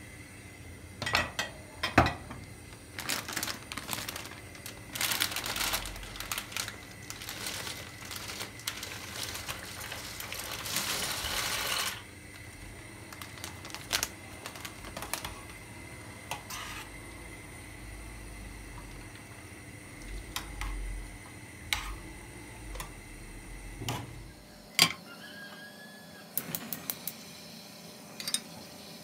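A metal spoon stirring in a stainless steel saucepan, clinking and scraping against the pot. It is busiest in the first half, then gives scattered single clinks and taps.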